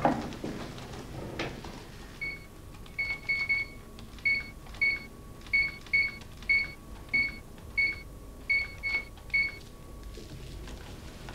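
Telephone keypad beeping as a number is keyed in: about fourteen short, high beeps at an uneven pace, some in quick pairs and triples, after a couple of knocks from handling the phone at the start.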